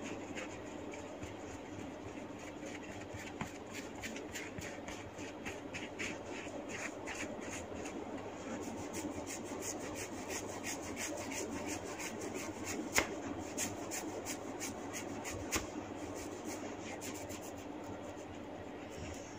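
Hair being rubbed and twisted against the scalp in a hair-cracking massage. A steady rubbing runs throughout, with a run of small crisp crackles, a few each second, from about a third of the way in until near the end.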